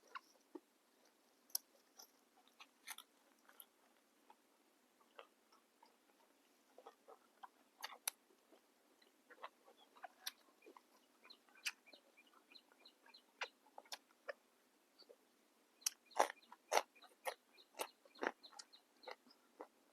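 Close-up chewing of a mouthful of crisp fresh raw vegetables with grilled beef salad: irregular crunches and wet mouth clicks, coming thickest and loudest about three-quarters of the way through.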